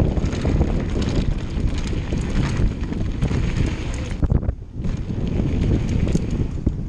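Wind buffeting a bike-mounted camera's microphone while a downhill mountain bike rolls fast over dirt and gravel, with tyre rumble and rattling knocks from the bike. The noise dips briefly a little past halfway, then comes back.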